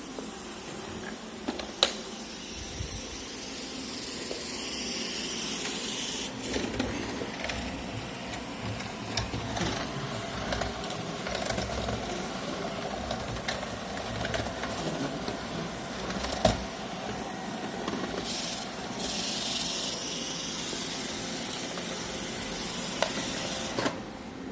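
iRobot Roomba e5 robot vacuum running, a steady motor hum with hissing suction noise that swells louder twice, and a few sharp knocks along the way.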